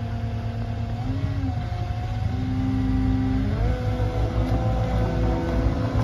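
Caterpillar compact track loader with a dozer blade working, its diesel engine running with a deep steady rumble under a pitched whine. The pitch rises and falls briefly about a second in, then climbs and holds higher about three and a half seconds in as the engine revs up.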